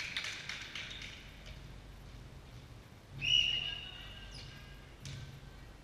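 Court sounds of an indoor netball game in a reverberant gym: footsteps and light knocks on the wooden floor, and one short high-pitched squeal about three seconds in that rings on in the hall.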